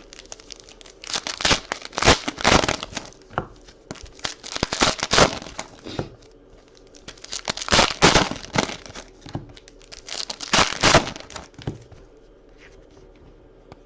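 Trading card pack wrappers being torn open and crinkled, in four separate bursts of tearing and crumpling, the last one ending about twelve seconds in.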